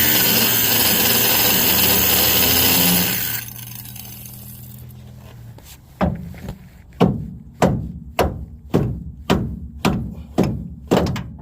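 A power cutting tool cuts into the shaft of a stuck steering ball-joint stud for about three and a half seconds, then spins down. About ten sharp knocks follow, roughly two a second.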